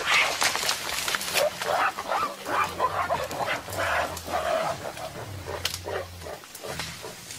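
Mountain gorillas vocalizing: a string of short, rough calls over low, drawn-out rumbles.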